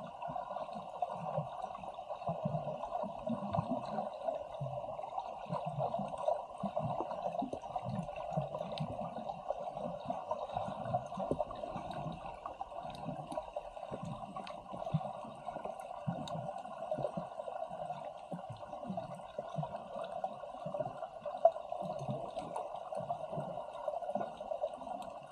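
Muffled water sloshing and gurgling, with irregular low thuds about once a second, over a steady hum.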